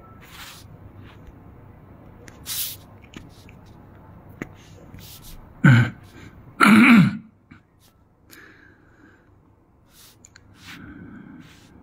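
A man clearing his throat: two short, loud throaty sounds about a second apart near the middle, with a brief hissing breath a few seconds earlier.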